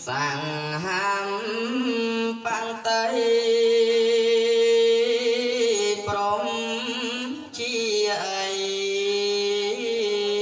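A young Cambodian Buddhist monk chanting into a microphone in a slow, melodic style, holding long notes that waver and bend. The chant pauses briefly for breath twice, about two and a half seconds in and again past the middle.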